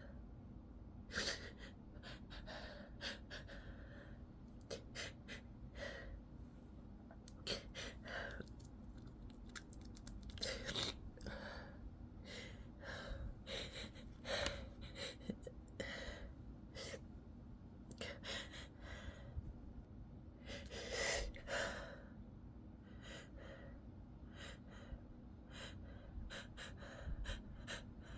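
A person's sneeze buildup: an irregular run of short gasping in-breaths and sniffs as an itchy nose works toward a sneeze. There are louder, longer gasps about a second in, around the middle and about three quarters of the way through.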